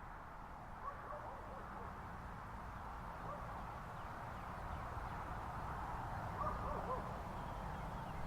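Faint bird chirps over a steady outdoor rumble and hiss that slowly grows louder.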